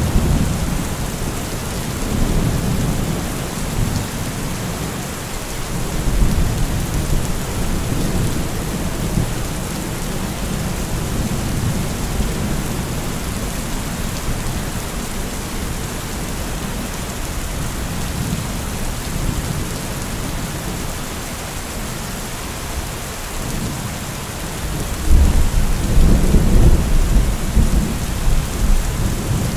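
Heavy rain falling steadily with rumbling thunder; the thunder swells up at the start and again near the end with a longer, louder roll.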